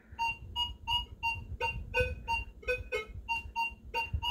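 Minelab Vanquish 540 metal detector giving short, repeated target-tone beeps, about four a second, as a quarter is swept past its coil at about a foot. Most beeps are one high tone, with a lower tone mixed in now and then.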